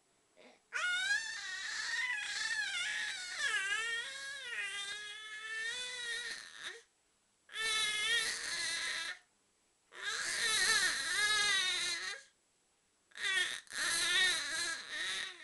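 A young infant cooing and babbling in four long, sing-song vocal stretches whose pitch rises and falls, the first lasting about six seconds and the rest two to three seconds each.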